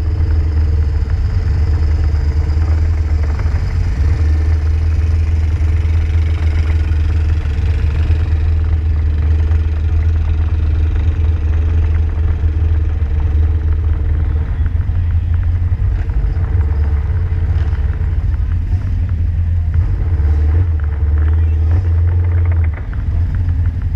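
Off-road vehicle's engine running steadily at low speed while the vehicle crawls along, a constant low drone that dips briefly near the end.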